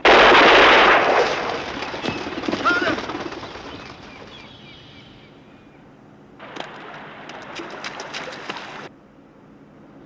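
Scoped rifle fired once, a sudden loud crack with a long echo that dies away over about three seconds. About six and a half seconds in, a burst of rapid crackling clatter runs for about two and a half seconds and cuts off suddenly.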